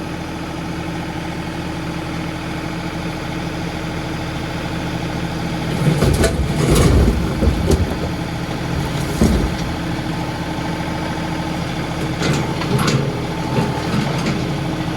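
John Deere 2038R compact tractor's three-cylinder diesel engine running steadily. Heavy clunks and clatter break in from about six to nine seconds in, and again briefly around twelve to thirteen seconds.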